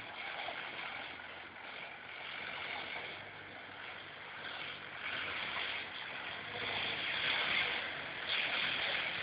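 ARO 4x4 off-road vehicle's engine running as it drives, getting louder from about seven seconds in as it comes closer.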